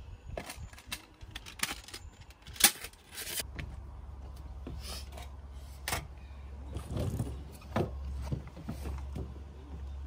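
Clicks, knocks and scrapes of camping gear being handled on a wooden deck, with one sharp click near the middle as the loudest sound. From about a third of the way in, a steady low rumble runs under the knocks.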